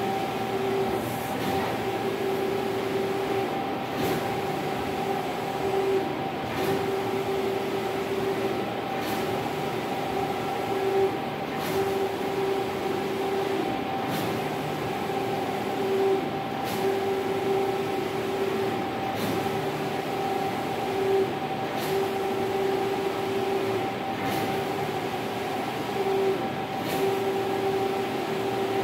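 Rodin 512i large-format flex printer running a print job: a steady machine hum and whine from its motors and fans as the print carriage sweeps back and forth. The whine breaks and a faint tick recurs about every two and a half seconds.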